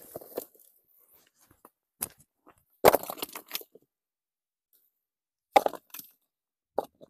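Rough stones knocking and scraping against one another as they are lifted and stacked by hand into a dry-stone wall: a few separate sharp clacks, the loudest about three seconds in with a short scrape after it, and another cluster near the end.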